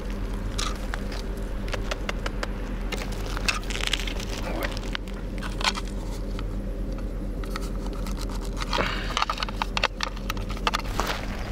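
Crinkling and clicking of a thin metal food tin being handled and squeezed, in short spells, over a steady low hum.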